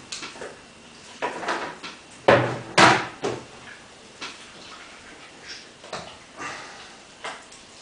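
Thick, stretchy body slime pouring out of a metal bucket onto a table and being gathered and lifted by hand: irregular wet squelches and splats, the loudest two a little over two and nearly three seconds in.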